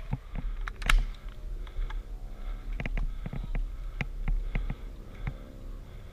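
Irregular light clicks and knocks over a steady low rumble, with one sharper click about a second in.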